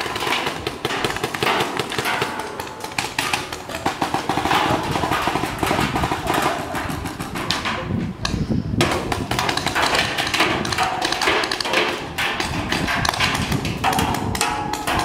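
Paintball markers firing in rapid, irregular volleys, many sharp pops and knocks overlapping as several players shoot at once.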